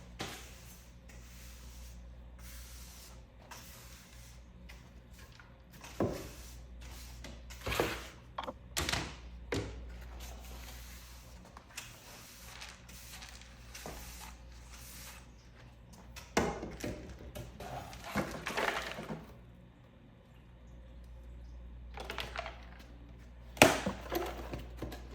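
Scattered knocks, thuds and clatters of boxes and household items being picked up, moved and set down while tidying a small room, the loudest knock near the end, over a low steady hum.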